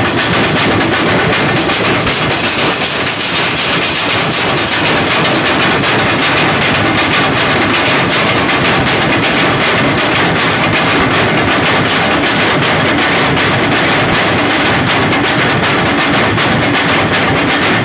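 Several large barrel drums beaten with sticks together in a loud, dense, unbroken rhythm, close to the microphone.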